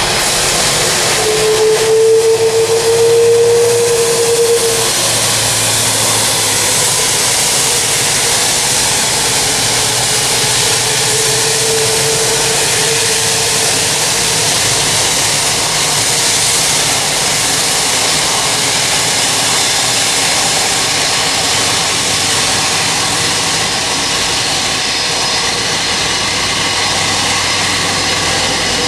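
Jet engines of an Airbus A330-200F freighter running at taxi power, a steady rushing jet noise. A high whine rises over it about a second in for several seconds, and returns more faintly around twelve seconds in.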